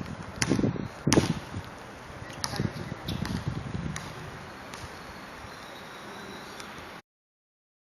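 Steady hiss of rain on an open phone microphone, with a few sharp knocks and taps from the handheld phone in the first second or so. The sound cuts out completely about seven seconds in.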